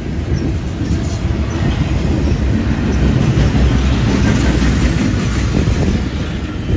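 Double-stack intermodal freight train rolling past at close range: steel wheels of the loaded well cars on the rails, a steady deep rumble.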